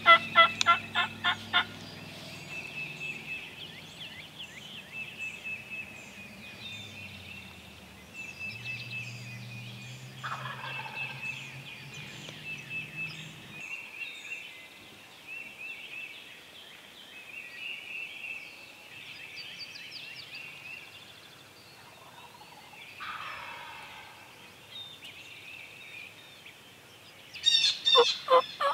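Wild turkey gobbler gobbling: a loud rattling gobble of rapid pulses ending just after the start, and another beginning near the end. In between, quieter high bird calls repeat, with two short falling calls.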